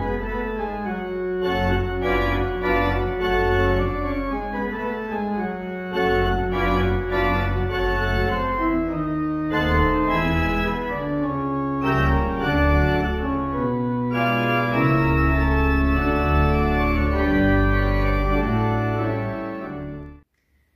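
Organ music: held chords over slowly changing bass notes, fading out quickly near the end.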